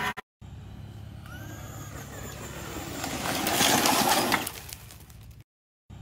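Traxxas Slash RC truck's electric motor whining as it drives and spins on a gravel path, its tyres spraying and crunching gravel. It builds to its loudest about three to four seconds in, then eases off.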